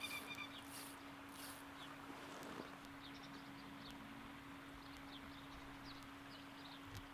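Faint streamside ambience: scattered short, high bird chirps over a steady low hum, with a pulsing high hiss in the first second or so.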